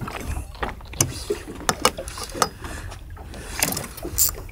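Water slapping against the hull of a small boat over a steady low rumble, with scattered short clicks and knocks from a spinning rod and reel as a hooked fish is reeled in to the boat.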